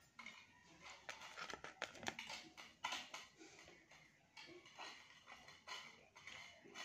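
Faint, irregular wet eating noises with a few soft clicks: fingers working food on a steel plate while eating pakhala by hand.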